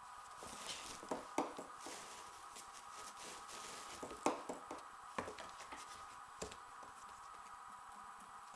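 A kitten scrabbling and nosing about in a cardboard box: scattered soft knocks and scratches on the cardboard, the loudest about four seconds in, over a faint steady hum.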